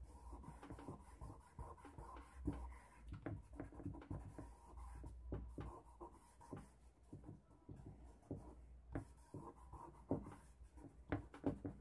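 Charcoal stick drawn over paper in short, irregular scratching and rubbing strokes, faint.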